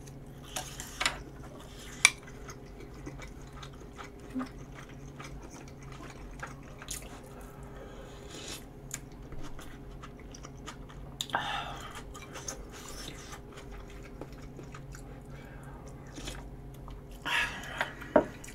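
A person eating gopchang jeongol (beef intestine hot pot) close to the microphone: soft chewing and scattered small clicks, a sharp click about two seconds in, and louder slurping bursts near the middle and near the end. A faint steady hum lies underneath.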